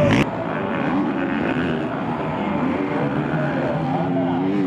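Motocross race bike engines revving up and down as the bikes go round the dirt track.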